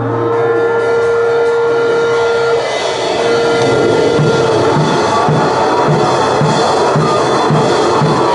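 Noisecore recording: a dense wall of harsh distorted noise with a held tone for the first two or three seconds, then an even drum beat of about two hits a second coming in under the noise about four seconds in.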